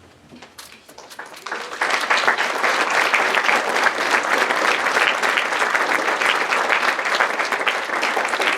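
Audience applauding. A few scattered claps about a second in swell quickly into steady, full applause.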